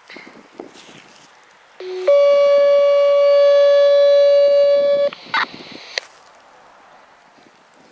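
Two-tone radio paging tones through a scanner's speaker: a short lower tone, then a higher steady tone held about three seconds, both switching on and off abruptly. This is the kind of sequential tone page used to set off a fire siren. A couple of short clicks follow.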